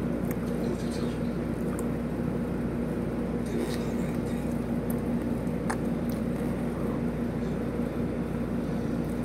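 A steady low machine hum with a constant tone runs through, and a few faint clicks and mouth sounds come from someone eating chicken wings with a fork.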